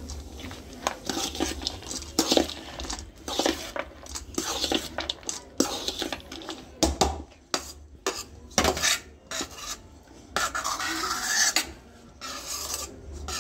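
A metal spoon stirring and tossing dry bhel puri mix of puffed rice and sev in a stainless steel bowl: irregular scrapes and clinks of spoon against steel, with the rustle of the dry puffed rice.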